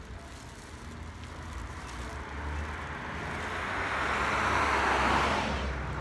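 A vehicle passing by on the street, its noise swelling to a peak about five seconds in, then falling away.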